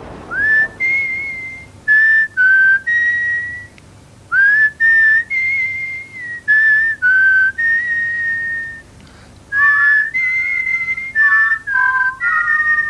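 Someone whistling a slow tune: a string of clear held notes, several sliding up into pitch, with two notes sounding together near the end.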